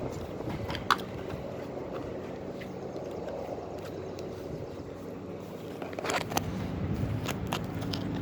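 A steady low motor hum runs through, with a few light clicks and taps over it, a sharp one about a second in and a small cluster about six seconds in, typical of a glitter container being tapped and handled.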